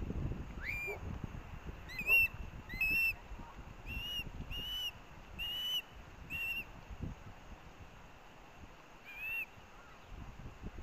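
Juvenile osprey giving a string of short, high whistled calls, about nine in all, most of them in the first six seconds and one more near the end. This is food-begging from a fledgling chick that wants the fish its sibling is eating.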